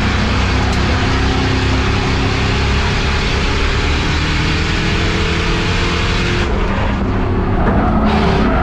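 Race car engine running hard at speed, heard from on board, its pitch holding fairly steady with small rises and falls over loud wind and road noise.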